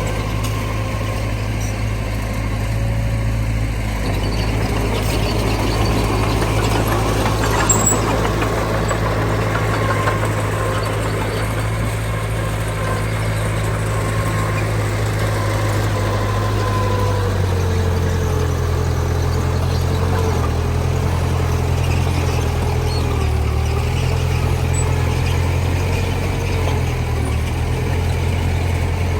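Heavy diesel engine of a dump truck or bulldozer running steadily, its note changing about two-thirds of the way through. A single brief click sounds a little before a third of the way in.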